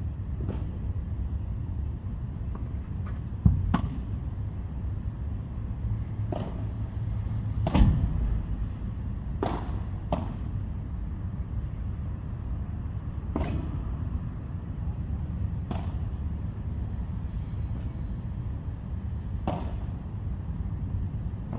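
Padel ball in play: sharp pops of racket strikes and ball impacts every few seconds, the two loudest about three and a half and eight seconds in, over a steady low rumble and a constant high whine.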